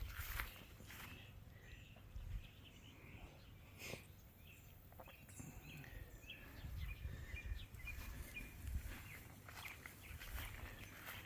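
Faint outdoor ambience with small birds chirping in the distance, mostly in the middle of the stretch, over a low, uneven rumble, with a few brief knocks of footsteps or phone handling.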